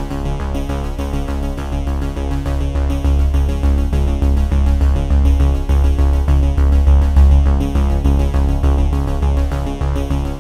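Background electronic music with synthesizer and a steady, pulsing bass beat.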